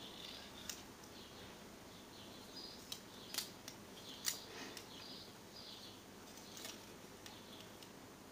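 A few sharp plastic clicks from a Transformers Waspinator action figure's ball joints being moved as it is posed, the loudest two about three and a half and four and a half seconds in, over faint high chirping in the background.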